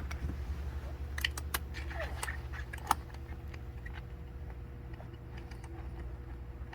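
Light clicks and taps of small metal parts being handled, a handful within the first three seconds and fainter ones later, over a steady low hum.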